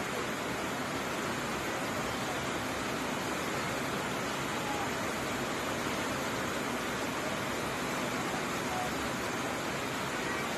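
Heavy tropical-storm rain pouring steadily, an even, unbroken hiss.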